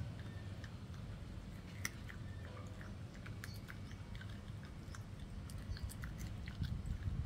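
A puppy chewing a piece of pork bone: scattered small cracks and clicks, irregular throughout, over a low steady rumble.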